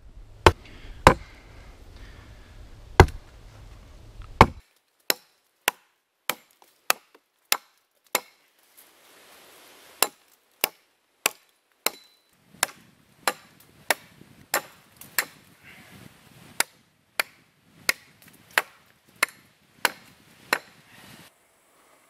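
Hatchet chopping wood, pointing wooden stakes: a long run of sharp single chops, irregular at first, then a steady stroke about every half second.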